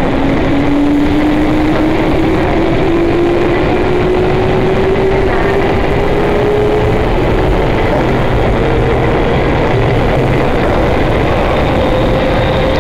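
Traction motors and gearing of a JR East 205-series electric train's motor car whining in one tone that rises steadily in pitch as the train gathers speed, over loud wheel-and-rail running noise, heard from inside the carriage.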